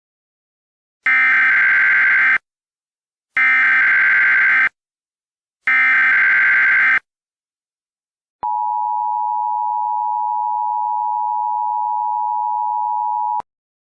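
Emergency Alert System tones: three short bursts of screechy digital SAME header data, each about a second and a quarter long, then after a pause the steady two-tone EAS attention signal held for about five seconds before it cuts off sharply.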